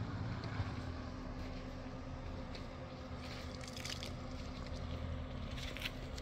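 A motor running steadily with a low hum, with a few brief rustles or scrapes over it.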